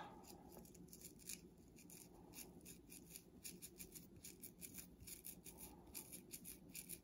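Faint, rapid, irregular scratchy strokes of a multi-pronged dreadlock crochet needle working through a loc of hair, several strokes a second.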